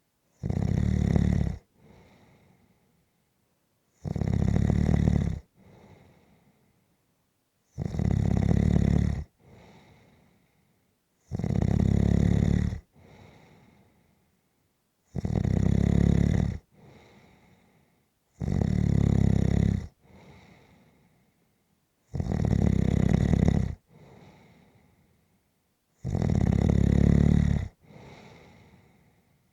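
A person snoring steadily in sleep: eight loud, rough snores in a slow, even rhythm, about one every three and a half to four seconds, each followed by a much fainter breath.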